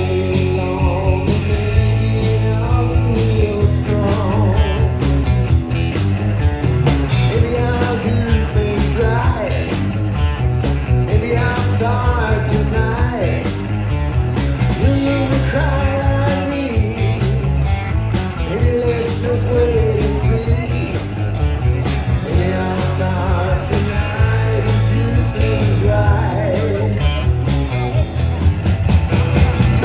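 Live band playing an upbeat rock-and-roll style song, with a singer, guitar and a steady bass beat.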